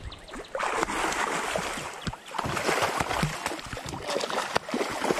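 A hooked blue catfish thrashing in the shallows at the water's edge, splashing hard. The splashing starts about half a second in and goes on unevenly.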